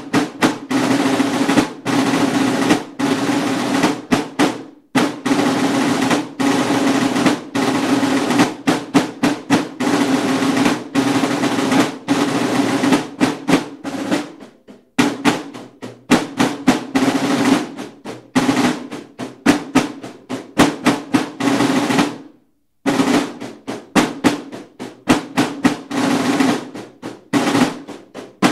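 Buekorps marching drums: several snare-type side drums playing rolls and a fast marching beat. The drumming drops out completely for under a second about three quarters of the way through, then carries on.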